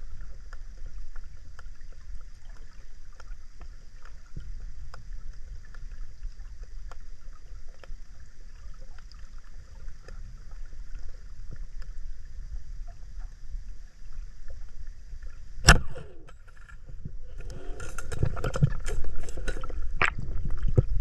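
Underwater river ambience heard through a diver's camera: a low steady rumble with faint scattered clicks, then a single sharp crack about three-quarters of the way through, followed by several seconds of bubbling, churning water.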